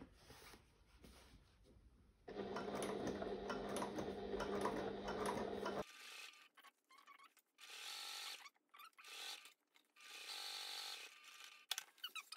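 Electric domestic sewing machine running at a steady speed for about three and a half seconds, topstitching down through waxed canvas, starting about two seconds in and stopping abruptly. Afterwards, soft rustles of the stiff canvas being handled and smoothed.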